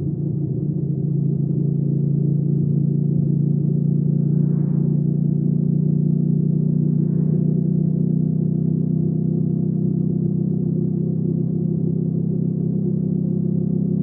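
Hyosung GV300S Aquila 300's V-twin engine and exhaust running at steady revs, one even low note that holds its pitch, growing slightly louder in the first second or two.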